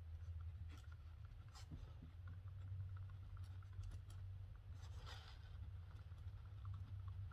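Faint scratching of a pen writing on a book page, with scattered light ticks and a short scratchier stroke about five seconds in, over a steady low hum.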